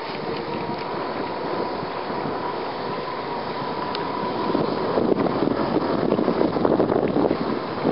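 British Anzani Unitwin 15hp two-stroke twin outboard motor running steadily at speed on a passing boat, heard from a distance as a constant drone with a thin steady whine. From about halfway through, louder gusts of wind buffet the microphone.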